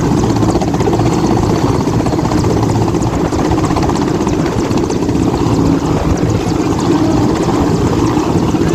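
Helicopter's rotor and engine running steadily, a loud, even rotor chop.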